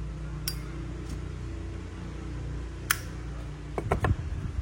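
Steady low hum with a few sharp clicks: one about half a second in, one near three seconds, and a quick cluster near the end.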